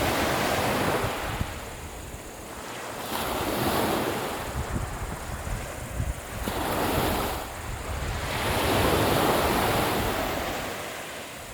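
Sea waves washing onto the shore in about four slow surges that swell and fade, with wind rumbling on the microphone.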